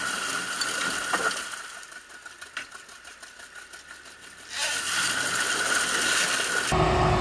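A van stuck in mud revving its engine, with the rear wheel spinning and throwing mud as it is towed out. It eases off for a couple of seconds, then revs up again about four and a half seconds in. Just before the end it cuts to a steady, lower engine drone.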